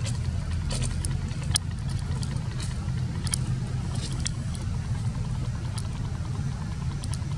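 An engine idling steadily, a low even hum, with scattered faint short high clicks over it.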